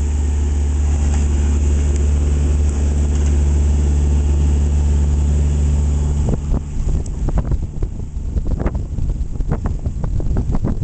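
A sailboat's engine running with a steady low drone while under way. About six seconds in, gusty wind rumbling on the microphone breaks over it.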